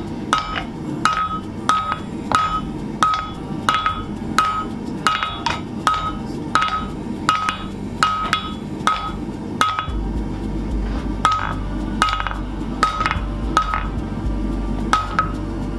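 Hammer striking a nail set in a nail-heading tool on an anvil, upsetting the nail's head. The blows come steadily, about one and a half a second, each with a short metallic ring.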